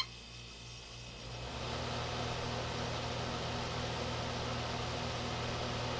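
DeLonghi dehumidifier running, with the hum of its sealed fan motor building up about a second in and then holding steady. The motor makes a little noise that the owner takes for dry bearings.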